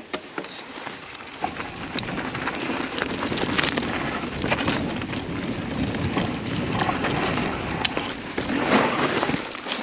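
Mountain bike riding over a rocky trail: tyres rolling and crunching on rock, with frequent sharp clicks and rattles from the bike, getting a little louder toward the end.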